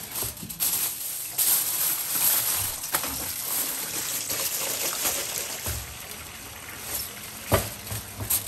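Briouats frying in hot oil: a steady sizzle, with a few small clicks and a sharp clack about seven and a half seconds in.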